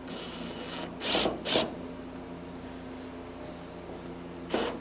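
A few short scraping sounds from a steel truck fender being worked into alignment on its mounts, over a steady low hum.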